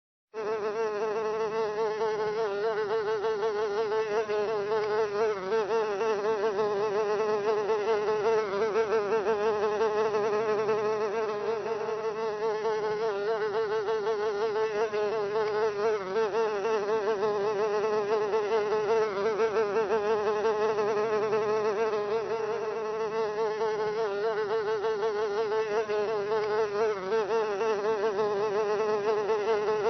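A fly buzzing continuously, a steady drone whose pitch wavers slightly as it flies.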